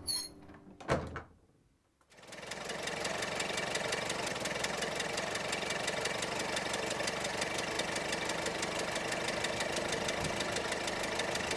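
Jazz music ends about a second in; after a short gap, a 1925 Ford Model T's four-cylinder side-valve engine runs steadily with a fast, even firing beat as the car drives along a lane.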